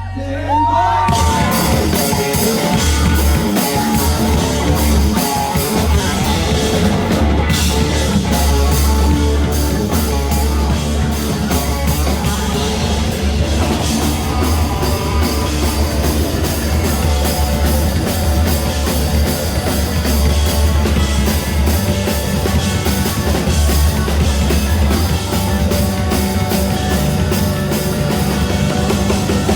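Live rock band playing a loud, fast song with a driving drum kit; the full band crashes in about a second in.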